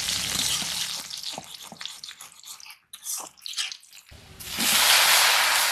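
Food sizzling in hot oil in an aluminium wok, with a metal spatula stirring and scraping in short clicks; about four seconds in the sizzle swells suddenly louder.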